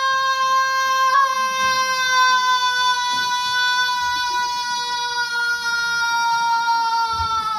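A young singer holds one long, high sung note on stage, with a small catch about a second in. The pitch sags slowly toward the end.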